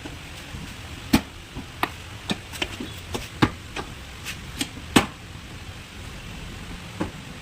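A series of sharp, irregular knocks and taps, about nine of them with uneven gaps, over a steady background hiss.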